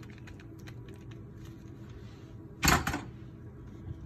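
Light clicks from a handheld lime squeezer, then a short, loud clatter about two-thirds of the way through as it is put down, with a small knock near the end.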